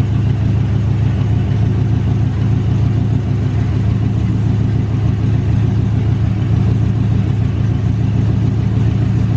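Boosted pickup truck's engine idling steadily, heard from under the truck near its exhaust, with the newly fitted 4L80 automatic and 3200-stall torque converter in drive while the truck sits up on a lift.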